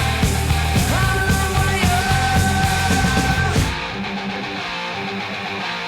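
Loud rock music with held sung or yelled voices over a heavy drum and bass beat; about two-thirds of the way through, the drums and bass drop out, leaving the higher parts.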